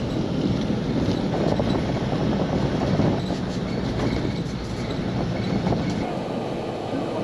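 Ride noise inside a passenger van on the move: a steady engine and road rumble with light clattering of the body. The deepest rumble thins out about six seconds in.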